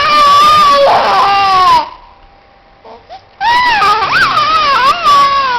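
A small child imitating a car with their voice: a high-pitched, wavering, drawn-out 'vroom' held for about two seconds, then a pause, then another long one starting about three and a half seconds in.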